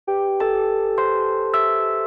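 Intro music: held notes come in one after another, about every half second, and stack up into a sustained chord.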